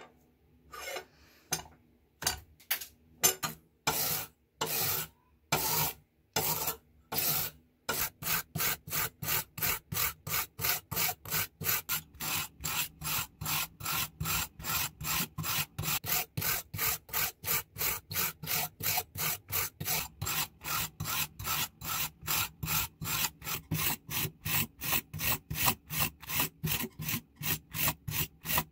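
Hand wire brush scrubbing rust off an old pair of scissors, metal bristles rasping on the steel blade and handle. A few slower, separate strokes come first, then from about eight seconds in fast, steady back-and-forth strokes at about three a second.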